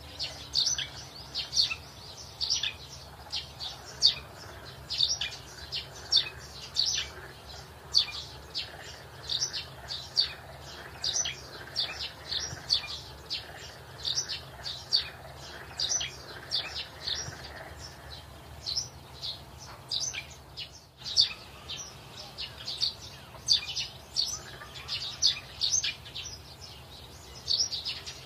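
Small birds chirping continuously: short, high chirps several times a second, with a brief break about three-quarters of the way through.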